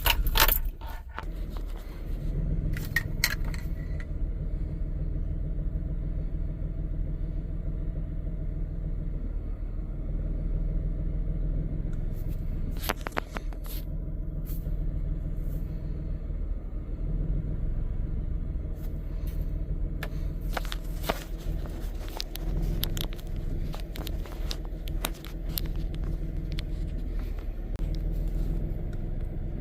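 A 2006 Nissan Pathfinder's 4.0-litre V6 engine idling steadily, with scattered clicks and scrapes, most of them in the second half.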